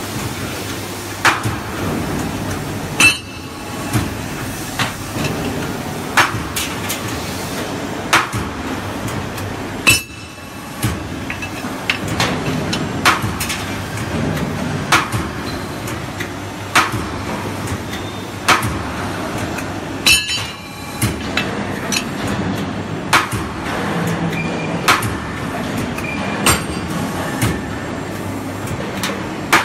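Hydraulic angle-flange punching and cutting machine for ductwork working in a steady cycle: a sharp metallic clank of the punch or cutter on angle steel roughly every two seconds, over the continuous hum of the machine's hydraulic unit.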